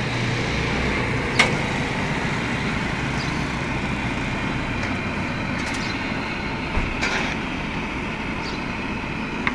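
A few short, sharp clicks and cracks as a screwdriver pries the glued lens off a heat-softened car headlight housing, over a steady rushing noise.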